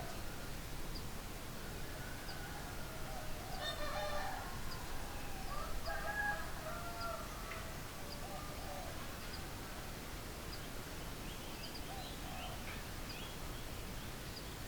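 Chickens clucking and calling softly, with a short louder call about four seconds in and weaker calls near the end. A faint high tick repeats about every two-thirds of a second throughout.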